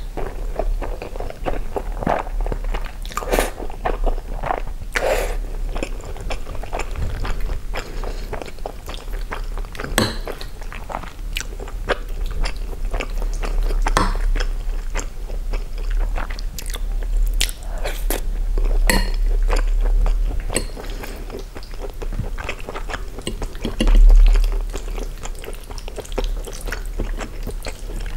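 Chewing and biting of Filipino-style sweet spaghetti with sliced hot dog sausages and cheese: many small wet clicks and crunches from the mouth, with a metal fork twirling pasta on the plate. One louder low thump comes near the end.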